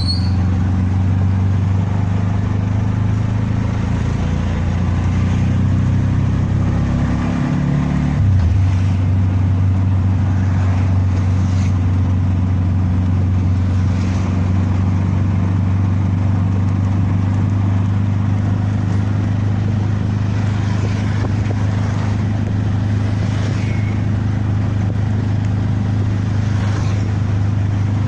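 Vehicle engine running steadily with a low drone, heard from on board while moving; the drone's pitch shifts briefly about eight seconds in, then settles again.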